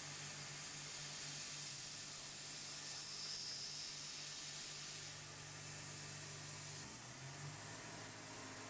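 Tormach 770M CNC milling machine running, a steady hiss over a low hum, while a chamfer cutter takes a light micro-chamfer pass on copper. About seven seconds in the hum changes pitch as the machine moves on to the next operation.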